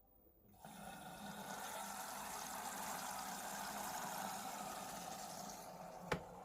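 Water rushing into a washing appliance, starting suddenly about half a second in and running steadily, with a single sharp click near the end.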